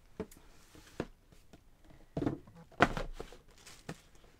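Scattered knocks, thuds and rustling of things being handled and shifted about, with the loudest cluster about two to three seconds in.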